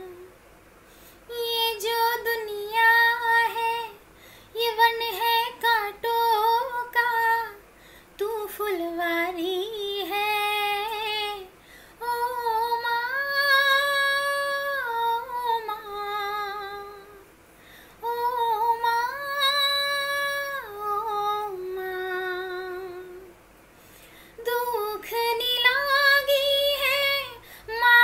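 A woman singing a slow song unaccompanied, phrase by phrase, with long held notes and short pauses for breath between phrases.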